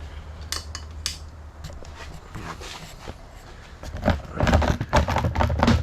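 A few light clicks, then a dense run of knocking and clattering near the end: hard plastic body panels and hardware of an ATV being handled and worked loose during disassembly.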